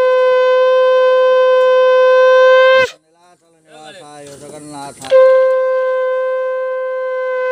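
Conch shell (shankha) blown in long, steady, horn-like notes to mark a Hindu puja. The first note breaks off with a downward slip about three seconds in, and after a short gap a second long note begins about five seconds in.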